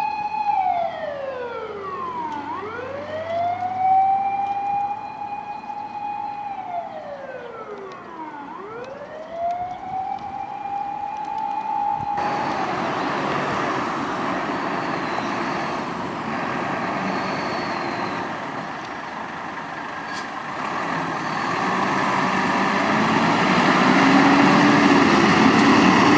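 Fire rescue truck's motor siren wailing: a held tone winds down and climbs back up twice. It cuts off abruptly about halfway, replaced by steady truck engine and road noise that grows louder near the end.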